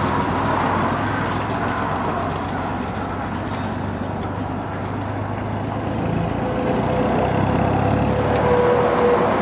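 Motor vehicle engine noise, a steady low rumble with road noise; about seven seconds in a steady tone comes in and grows louder toward the end.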